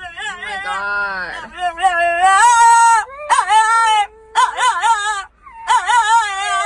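A dog howling in long, wavering cries that rise and fall in pitch, broken by a few short pauses.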